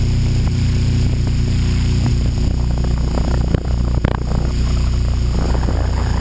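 HK600GT electric RC helicopter's motor and rotor running steadily in flight, heard from the onboard camera: a low steady drone with a high whine over it. The level dips briefly with a couple of knocks about three and a half to four seconds in.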